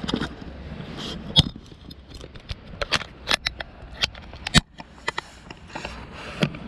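Fishing gear clicking and knocking as it is handled and carried, with footsteps. The knocks come irregularly, with two sharp, loud ones: one about a second and a half in and a louder one around four and a half seconds in.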